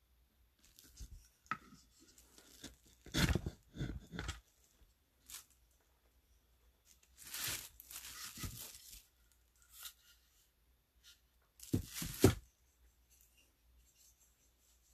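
Woodblock carving tool cutting into a wooden block, in several short, rough runs of strokes with pauses between them; the sharpest pair of strokes comes near the end.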